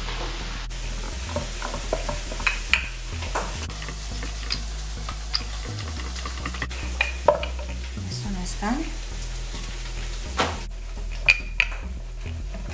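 Steady sizzle of saltfish frying in a pan, with scattered light knocks and taps of a wooden rolling pin on a wooden board as dough is shaped and rolled out.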